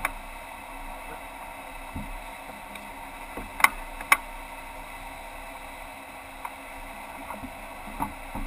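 Muffled steady background noise broken by two sharp knocks about half a second apart, a little over three and a half seconds in.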